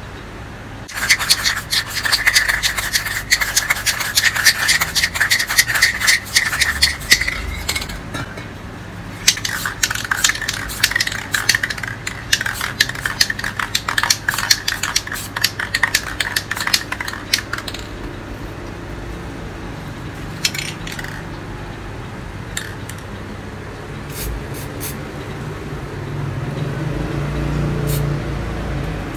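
A small pink pad rubbed quickly back and forth over the spray-painted canvas, a dense scratchy scrubbing in two long spells, followed by a few separate light taps.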